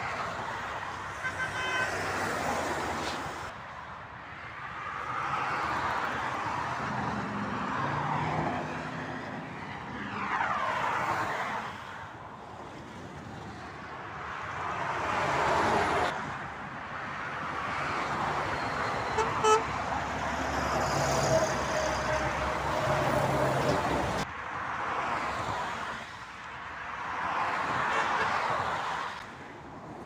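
Motorway traffic: cars and trucks pass one after another, each swelling and fading away as it goes by. A vehicle horn sounds once, a note that falls slightly as it passes, about two-thirds of the way through.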